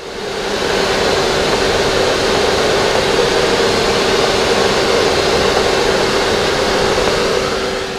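Vacuum cleaner running, its nozzle drawn over the fins of an air conditioner's outdoor condenser to suck off clogging poplar fluff: a steady whine over rushing air that fades in over the first second and fades out near the end.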